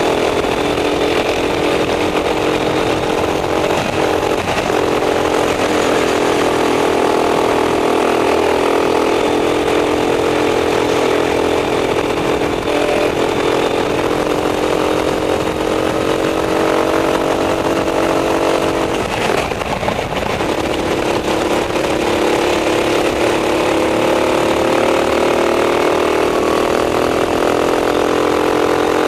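Racing kart engine running hard at race pace, its pitch rising and falling through the corners. About two-thirds of the way through the revs drop away briefly and then climb again.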